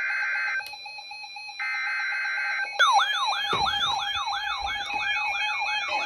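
Weather radio alert: two one-second bursts of buzzing SAME digital data tones, then, from about three seconds in, a weather radio receiver's alarm siren warbling up and down about three times a second, over a steady tone.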